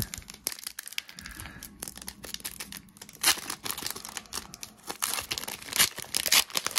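Foil wrapper of a Pokémon trading-card booster pack crinkling and being torn open: a run of crackles, with louder rips about three seconds in and near the end.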